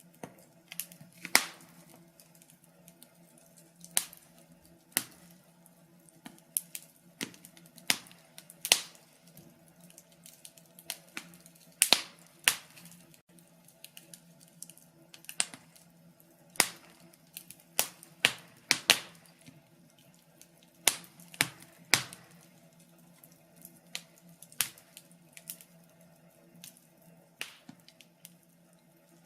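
Wood fire crackling: irregular sharp pops and snaps, sometimes a few close together, over a faint steady hum.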